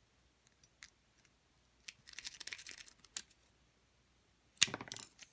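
A worm rake scraping in and out of a Knog padlock's keyway, metal on metal against the pins: a scratchy rattle about two seconds in, a few sharp clicks, and a louder clatter of clicks near the end.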